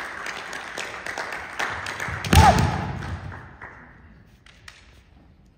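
Kendo bout: bamboo shinai clacking and knocking against each other and the armour in quick, uneven taps, with one loud thud about two and a half seconds in, after which it goes much quieter.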